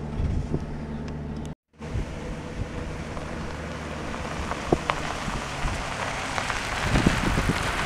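Pickup truck driving up and passing on a gravel drive: engine running with a low hum, and a hiss of tyres on gravel that grows louder toward the end. The sound drops out briefly just before two seconds in.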